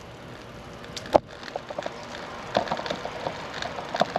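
Bicycle knocking and rattling over uneven ground: one sharp knock about a second in, then a run of irregular clicks and rattles.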